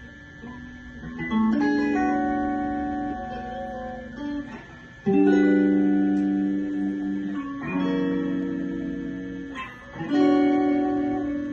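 Guitar chords strummed and left to ring. A chord fades out, then four more are struck, each sharp at the start and dying away, one about every two and a half seconds.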